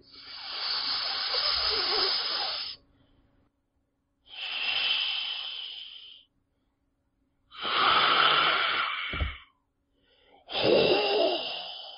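Four long hisses, each lasting roughly two to three seconds, separated by silent gaps.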